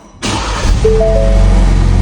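Music cuts in suddenly just after the start: a repeating pair of held notes over a steady low bed. Under it, plausibly, the 2023 Ford Bronco's engine running right after starting.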